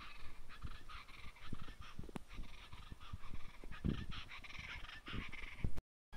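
Irregular animal calls over scattered low thumps, cutting off suddenly near the end.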